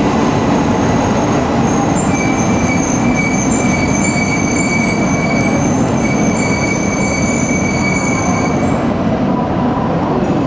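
E2 series Shinkansen train running in slowly on arrival, a steady loud rumble of wheels and motors with high, wavering brake and wheel squeal. The squeal stops near the end.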